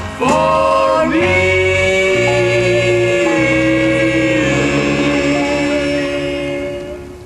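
Gospel vocal group singing in close harmony, a cappella, on a long held closing chord that fades out near the end.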